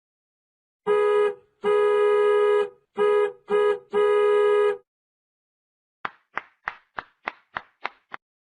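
A car horn honking five times in a rhythmic pattern, short, long, short, short, long, each blast a steady single pitch. Then a quieter, quick run of eight short notes that each die away at once.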